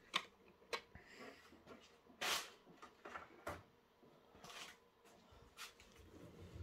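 Clear plastic packaging crinkling and rustling in short bursts as it is handled, with a few sharp clicks.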